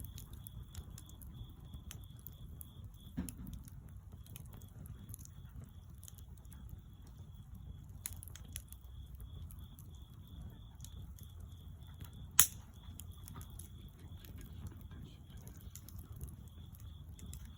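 Bonfire burning with scattered crackles and small pops over a low rumble, and one sharp loud pop about twelve seconds in. A high, evenly pulsing chirp runs steadily behind it.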